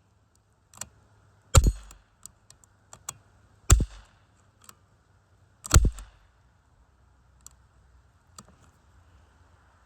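BB pistol fired three times, about two seconds apart, each shot a sharp crack. Fainter clicks and taps come between the shots.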